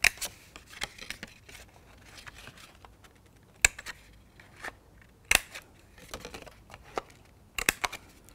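Handheld paper corner punch snipping the corners off cardstock: sharp clicks a second or more apart, with several in quick succession near the end.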